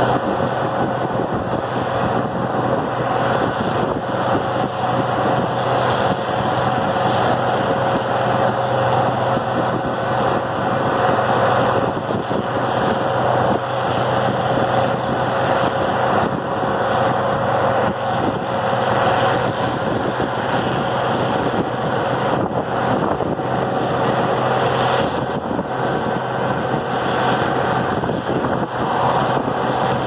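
Farmall diesel tractor engine running steadily at road speed while pulling a square baler, heard from a following car, with road and wind noise.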